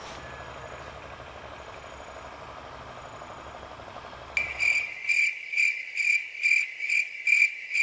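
Cricket chirping: a high pulsing chirp repeating about twice a second, which cuts in suddenly about four seconds in. Before it there is only a low steady background hum.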